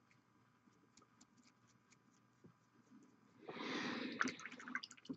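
A paint dropper bottle being shaken to mix the paint: after a few faint ticks, a loud noisy burst full of small clicks starts about three and a half seconds in and runs on.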